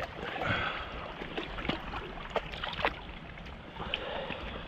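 River water flowing and lapping at the bank: an even wash of noise with scattered small clicks and taps.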